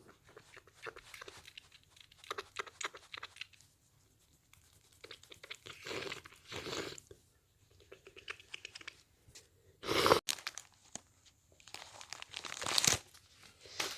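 Paper tissues crinkling, rustling and tearing as they are handled, with a few short noisy bursts; the loudest comes about ten seconds in and cuts off suddenly.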